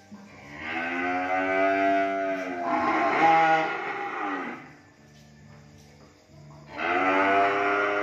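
Young beef calves mooing: two long calls one right after the other, each arching up and then down in pitch, then a pause of about two seconds and another long moo starting near the end.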